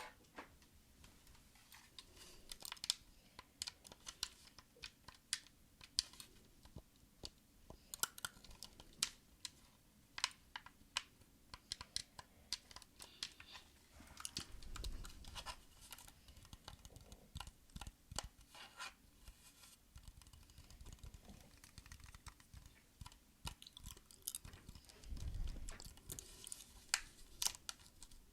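Close-miked ASMR trigger sounds: irregular, crisp taps and clicks, several a second at times, with a soft low rumble about halfway and again near the end.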